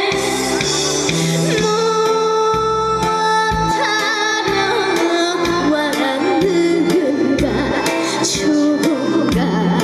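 A young woman singing a trot song live with heavy vibrato, over an instrumental accompaniment with a steady low beat.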